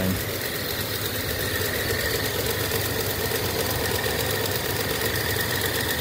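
Improvised heat pump rig running: an inverter-drive compressor powered by a VFD together with its condenser fan, a steady mechanical hum with a thin high tone held above it.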